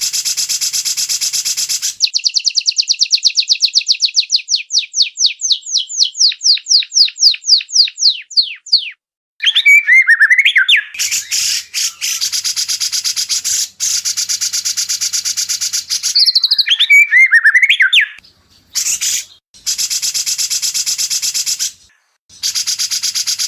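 White-rumped shama song, edited into an electronic training track. It opens with a dense, buzzy rattle, then a long run of rapid sweeping notes that slow and grow louder. Short whistled phrases alternate with more buzzy rattles, and the sections start and stop abruptly at the edits.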